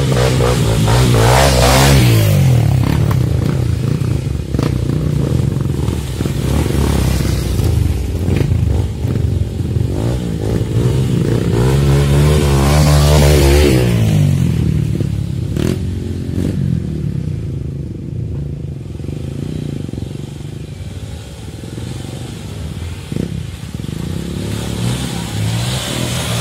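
Trail motorcycle engine revving up and easing off as it rides a rough track, with two strong surges, one near the start and one about halfway, then steadier, lower running. A few knocks from the bike jolting over the ground.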